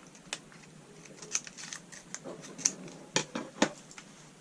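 Scattered small clicks and taps from handling the candy kit's plastic packets and tray while adding the sprinkles, loudest a little after two and a half seconds in and again around three and a half.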